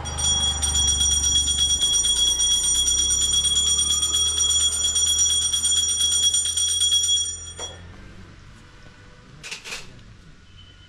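Temple bell at a Hindu shrine rung rapidly and continuously, a bright ringing that stops abruptly about seven and a half seconds in; a couple of faint clicks follow.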